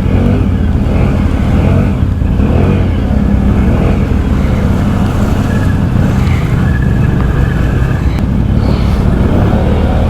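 Can-Am Outlander ATV's V-twin engine running steadily under load while driving through mud and water, the revs shifting a little.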